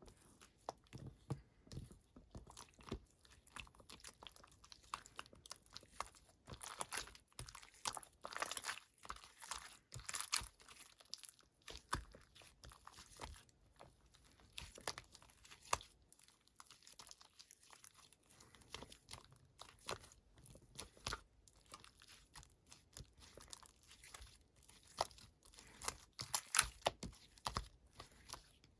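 Slime being squished, pressed and stretched by hand, giving irregular sticky clicks, small pops and crackles.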